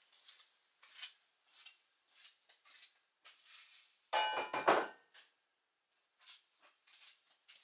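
Metal parts being handled on a workbench: scattered light clinks and ticks, with a short metallic clatter that rings briefly about four seconds in.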